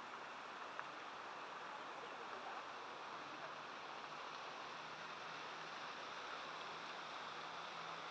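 Faint, steady open-air background noise: an even wash with no distinct events, and a faint low hum coming in about halfway.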